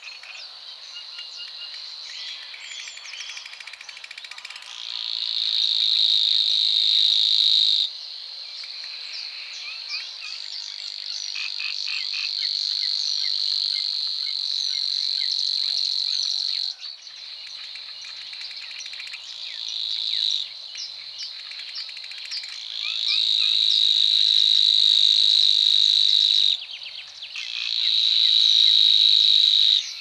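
Savi's warbler singing its reeling song: a steady, insect-like buzz held for several seconds at a time, repeated in about five bouts, with short chirps and a brief ticking lead-in between them.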